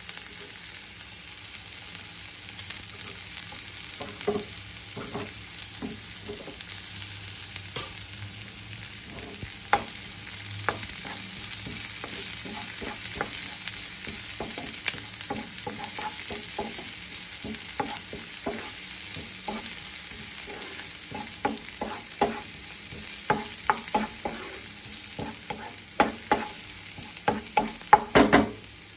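Sliced garlic and shallots sizzling steadily in hot oil, stirred with a wooden spatula. The spatula's scrapes and knocks on the pan come more often in the last several seconds, the loudest near the end.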